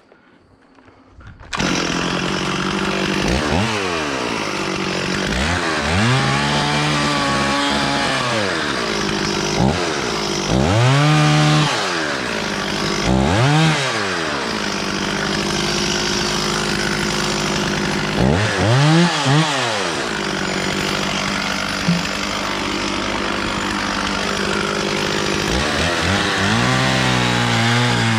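Stihl 440 two-stroke chainsaw starting abruptly after about a second and a half of quiet, then running and sawing wood, its engine pitch rising and falling again and again as it revs up and drops back.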